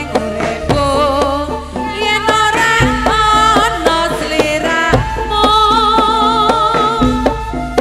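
Javanese jaranan dance music: a wavering, ornamented melody line over frequent drum strokes and a steady low bass.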